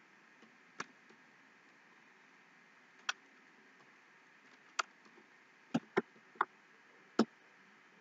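Computer mouse clicking: seven sharp single clicks at irregular intervals, the last four louder and closer together.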